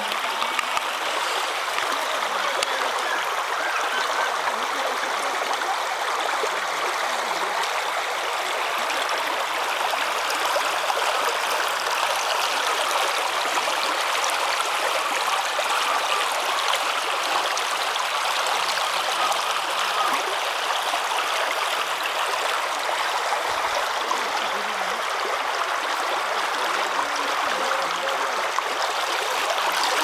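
Shallow rocky stream flowing over and between stones: a steady, even rush of water.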